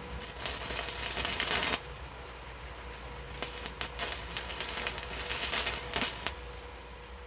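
Arc welding with a Daiden 300-amp inverter welder: the electric arc crackles and spits in two bursts, the second about three seconds long, with a faint steady whine underneath.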